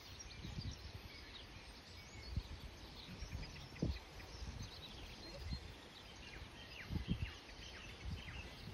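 Birds chirping and singing over a low outdoor background hiss, with a few soft, scattered low thuds.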